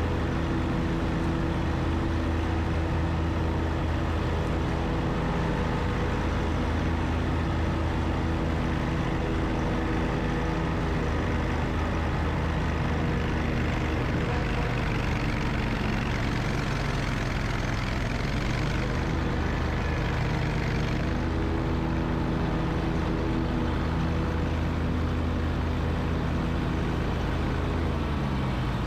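John Deere riding lawn mower's engine running steadily while mowing, with a rougher, hissier stretch in the middle and the engine pitch dropping near the end.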